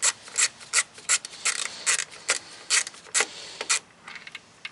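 Hand driver with a T30 Torx bit backing out a tail-lamp housing screw: a rasping stroke about two and a half times a second. The strokes stop about four seconds in, and a few faint ticks follow.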